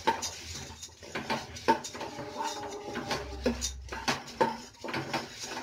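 A spatula stirs and scrapes roasted coriander seeds, dals and curry leaves around the inside of a pressure cooker. The sound is a run of irregular scrapes and knocks against the pot's metal, some of them ringing briefly.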